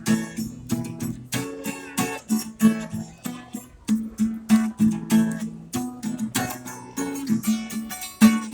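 Acoustic guitar strummed in a steady rhythm, without singing, the chords changing every second or so: an instrumental passage within a song.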